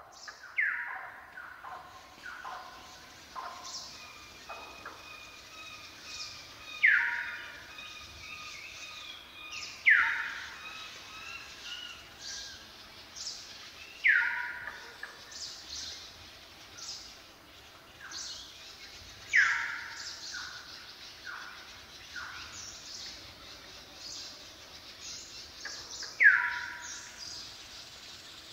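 Birds calling: a loud call that sweeps down in pitch comes six times, several seconds apart, among many fainter chirps and short whistles.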